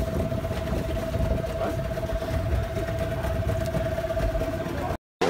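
15-horsepower outboard motor running steadily at low speed, a constant whine over a low rumble, until it cuts off abruptly near the end.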